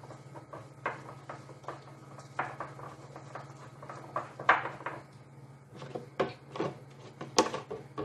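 A gloved hand mixing a wet spice-and-olive-oil paste in a ceramic bowl: irregular scrapes, squelches and clicks against the bowl, louder about four and a half seconds in and again near the end.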